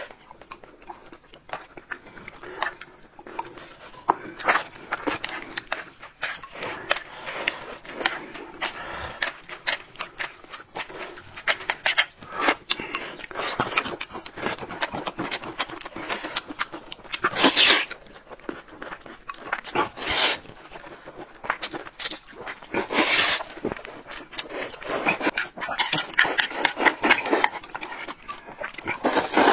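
People eating noisily: slurping noodles and chewing, with many small wet clicks and three loud slurps in the second half.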